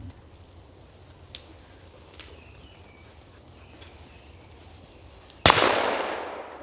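A single shotgun shot about five and a half seconds in, a sharp crack whose report trails off over about a second.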